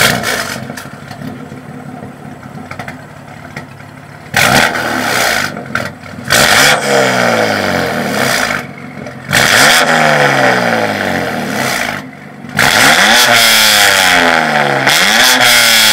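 BMW F82 M4's twin-turbo straight-six through a Fi Exhaust valvetronic catback and catless downpipe, with a sudden loud blip at the start, then idling. It then revs four times, each rev falling back with the pitch sliding down, and the last is held longest, for about three seconds near the end.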